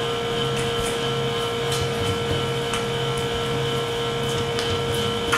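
Steady machine hum with a constant mid-pitched whine, plus faint soft taps of hands rolling baguette dough on the table.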